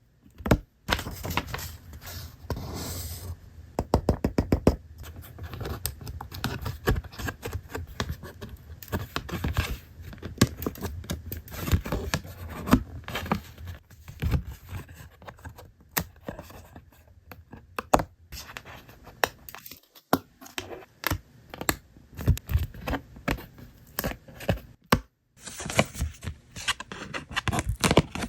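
Paper and card parts of a Rolife miniature bakery kit being handled close up: scraping, scratching and tearing, with many sharp clicks and taps along the way and a short pause about two-thirds through.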